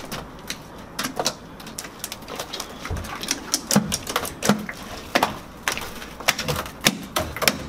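A large mass of sticky slime being kneaded and peeled off a pool floor by hand, making irregular clicks and pops.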